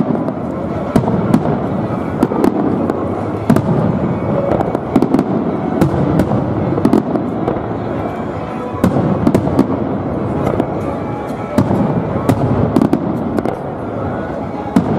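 Fireworks display: aerial shells bursting overhead in quick succession, sharp bangs and crackling going on throughout, over a continuous rumble of launches and echoes.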